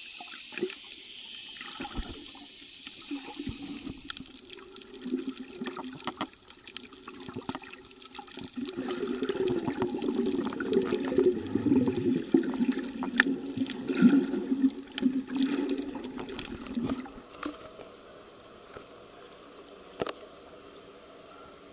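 Water sloshing and bubbling around an underwater camera, heard muffled through the housing, with scattered clicks. A louder, churning stretch runs through the middle, then it quietens near the end.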